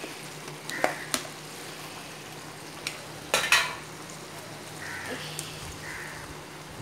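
Thick tamarind kuzhambu of elephant foot yam at a rolling boil in a cast-iron kadai, bubbling steadily, with a few sharp clicks, the loudest about three and a half seconds in.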